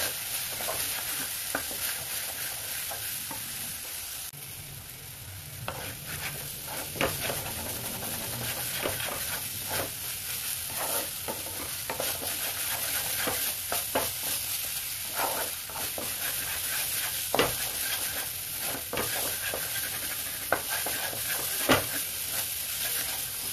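Onion-and-spice masala sizzling in mustard oil in a metal kadhai over a high gas flame, being fried down with a splash of water. A spatula scrapes and knocks against the pan again and again as it is stirred.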